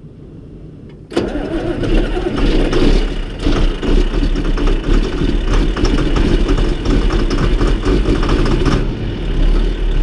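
John Deere tractor engine starting: it catches suddenly about a second in and then keeps running steadily.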